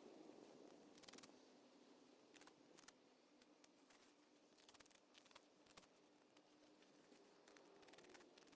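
Near silence with faint, scattered clicks and crackles.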